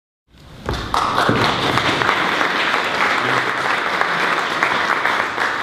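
Audience applauding: dense, steady clapping that comes in from silence just after the start.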